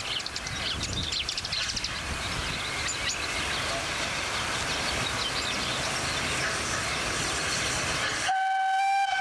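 Steam locomotive running toward the listener, a steady hiss with light clicking. About eight seconds in its steam whistle sounds a single steady blast.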